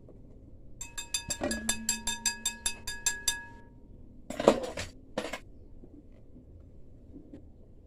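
A metal kitchen utensil tapping rapidly against a metal bowl while mixing cake batter, about five taps a second, the bowl ringing. Two louder clattering knocks of dishware follow.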